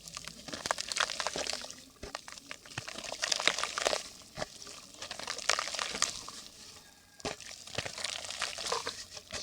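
Dry yellow mud crumbling and crackling as it soaks up water in a clay pot: dense fizzing crackles and small wet clicks in waves a second or two long, with brief lulls between them.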